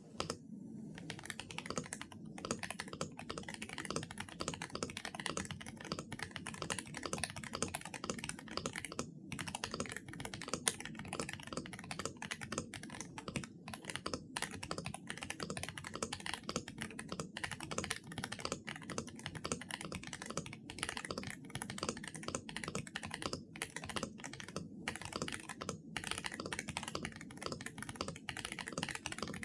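Fast, steady typing on an Aula F108 Pro gasket-mounted mechanical keyboard with Reaper linear switches, PBT Cherry-profile keycaps and a polycarbonate plate, broken by a few short pauses.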